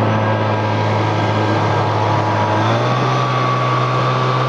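Snowmobile engine running steadily, its pitch stepping up a little past halfway through.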